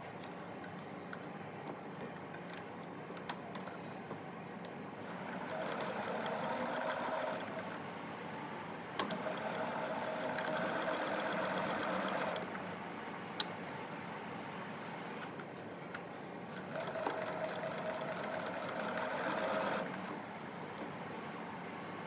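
Electric sewing machine stitching in three runs of about two to three seconds each, with short pauses between them where only a low hum and a few small clicks remain.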